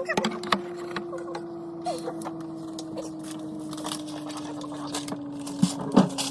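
Containers and items knocking and clinking as a refrigerator is cleaned out, with a couple of louder knocks near the end, over a steady low hum that slowly drops in pitch.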